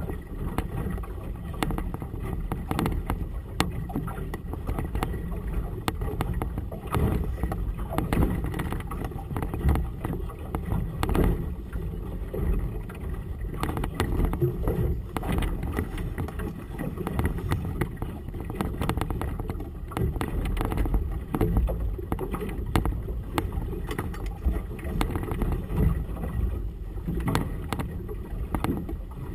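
Gusty wind buffeting a GoPro Hero 2's microphone on a boat, a steady low rumble with irregular sudden gusts, over water sloshing on choppy harbour water.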